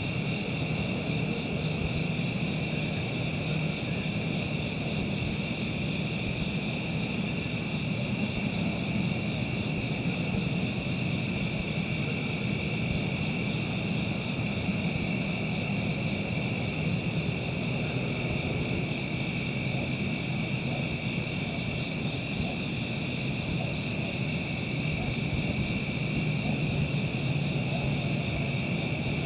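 Steady chorus of night insects, several high pulsing trills layered together, over a steady low hum.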